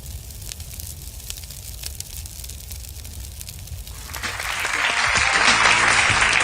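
Faint crackling hiss with scattered clicks, then an audience breaking into applause about two-thirds of the way in, building quickly and growing loud.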